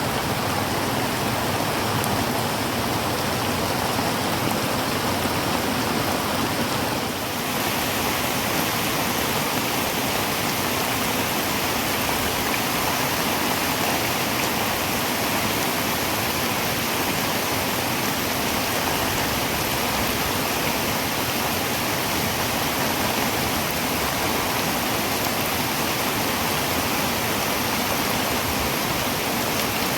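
Heavy rain falling steadily on a tin roof, a dense even hiss with no breaks.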